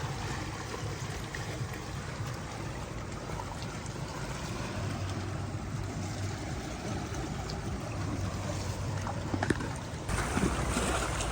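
Steady waterside noise of water washing at the shore, with a low rumble underneath; the sound changes abruptly and gets louder about ten seconds in.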